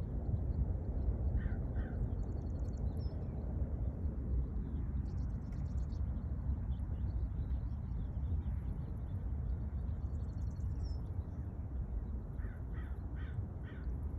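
A bird giving short calls: two about a second and a half in and a run of four near the end, with faint high chirps in between. A steady low rumble underneath is the loudest sound.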